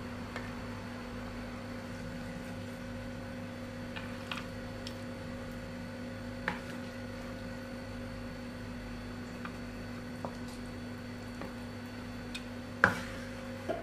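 A steady electrical hum with scattered light clicks and taps. A sharp, louder click comes near the end, and the hum cuts off just after it.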